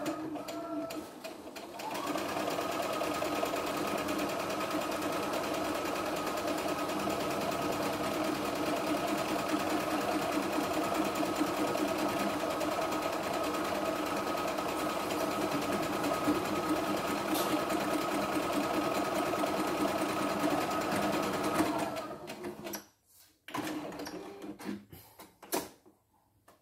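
CNY E960 computerised sewing and embroidery machine stitching an automatic buttonhole on its own, with a steady running hum. It is quieter for the first two seconds, then louder and even until it stops about 22 seconds in, when the buttonhole is finished. A few short clicks and handling noises follow.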